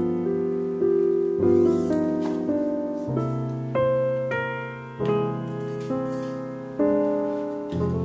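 Background piano music: chords struck one after another and left to ring and fade.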